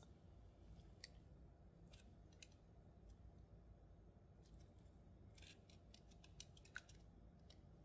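Faint, light clicks of a small metal jump ring and acrylic charms being handled as the ring is closed. A few scattered clicks come first, then a quick cluster of them past the middle, over near silence.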